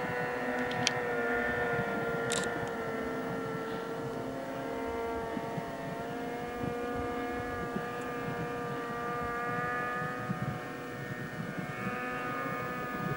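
Snowmobile engine running with a steady droning note that eases slightly in the middle and rises a little again near the end. A faint short tick comes about two seconds in.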